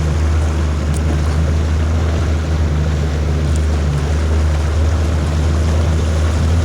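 Boat motor running steadily with a deep, even hum that sets in right at the start, over wind and water noise.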